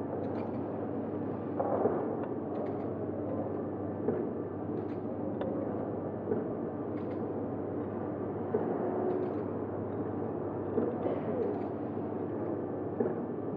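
ZV-240D powder packing machine running: a steady mechanical hum broken by short clunks and clicks every second or two.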